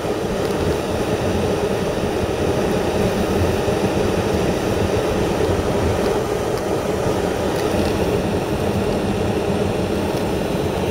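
A car driving along, with steady road and engine noise that holds even throughout.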